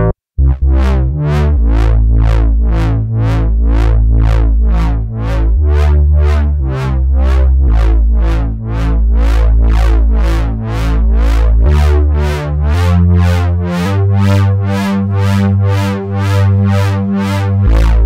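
u-he Diva software synthesizer playing its "MK Bass LFO PWM" preset: a pulse-width-modulated, analogue-style synth bass repeating short notes about two to three times a second, the bass note shifting every few seconds. About thirteen seconds in the tone turns brighter and buzzier.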